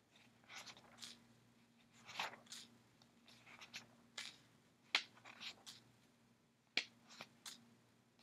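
Pages of a book being turned and handled, short soft papery rustles with a few sharp clicks, the loudest about five and seven seconds in, over a faint steady hum.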